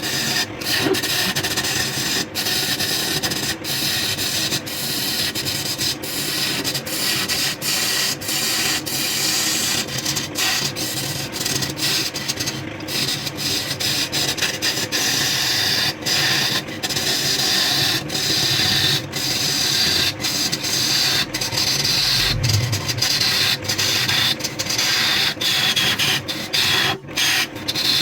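Wood lathe spinning a workpiece while a tool or abrasive works against the turning wood, giving a steady hiss and scrape with many brief breaks.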